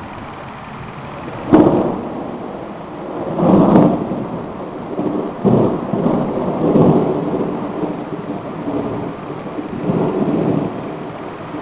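Close thunder: a sudden sharp crack about a second and a half in, then rolling rumbles that swell and fade several times over the following seconds, over steady rain.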